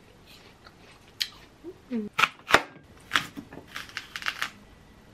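Knife and apple knocking on a wooden cutting board, two sharp knocks a little over two seconds in. These are followed by a quick run of crisp, crunchy scrapes as a small blade digs the core out of a halved apple.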